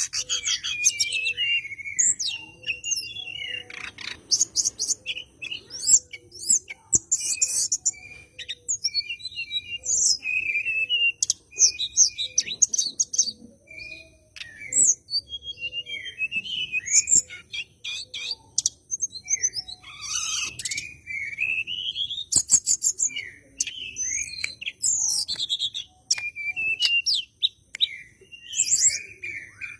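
A tledekan gunung songbird singing in full voice: a fast, varied run of sharp chirps, rapid trills and sweeping whistled notes, continuing with only short pauses.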